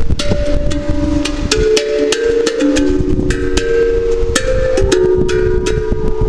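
Tonga steel tongue drum, a handmade tongue drum tuned to a D Hijaz scale, played with the fingertips in a free improvisation. Ringing metallic notes overlap and sustain, each starting with a sharp tap, several strokes a second.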